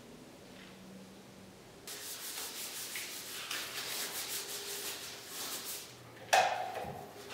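Blue nitrile-gloved hands rubbing, a dry rhythmic rasping for about four seconds, then a single sharp knock with a short ring.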